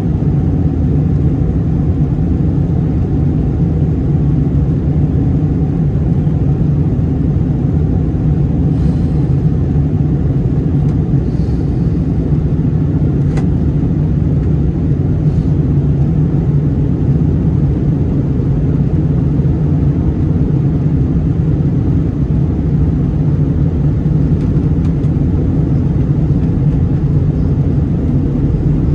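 Steady cabin roar of an Airbus A321-200 in flight on its descent: the CFM56 engines and the airflow over the fuselage, a deep even rumble heard from inside the cabin. A few faint ticks from the cabin come through the middle of it.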